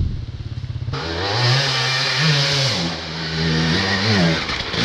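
Two-stroke enduro motorcycle engine, chugging at low revs for about a second, then revved up and down several times, its pitch rising and falling.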